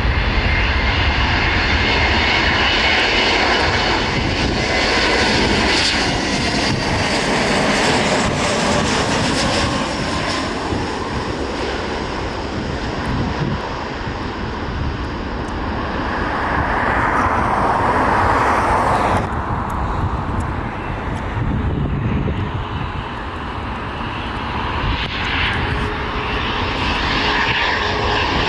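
Airliner jet engines passing close overhead: loud engine noise that swells and fades with gliding pitch. A strong swell cuts off suddenly about two-thirds of the way through, and engine noise carries on after it.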